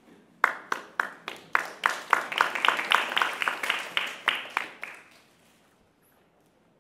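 Applause from a small audience, with separate hand claps clearly heard at about three or four a second, dying away after about five seconds.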